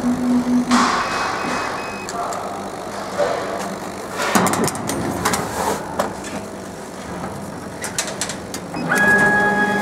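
Hum from the laser cutting machine, then acrylic cut-out pieces clicking and knocking against the metal slat bed as they are pushed out of the cut sheet. A steady hum with several tones starts up near the end.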